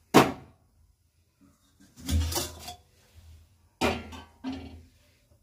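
Metal pot lid handled on a cooking pot: a sharp clank at the start, then a cluster of knocks and rattles about two seconds in and two more clanks near the end as the lid comes off.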